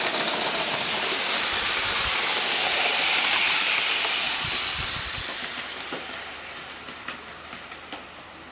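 Live-steam garden-railway model of a Saxon VII K narrow-gauge locomotive passing close with its train of wagons: a steady hiss that is loudest about three seconds in and fades as the train moves away, with a few sharp clicks near the end.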